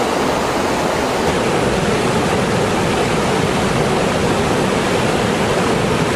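Floodwater rushing steadily in a river in full spate, a loud, even noise with no let-up.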